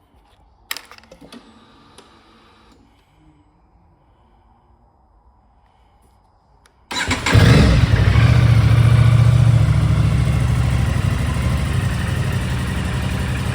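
A click and a faint whir about a second in, then, about seven seconds in, the Aprilia Tuono 660 Factory's parallel-twin engine on its stock exhaust starts suddenly and runs loud, a little higher at first and then settling towards idle.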